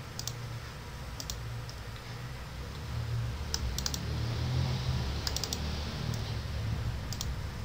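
Computer mouse buttons clicking in short clusters of two to four clicks, over a steady low hum.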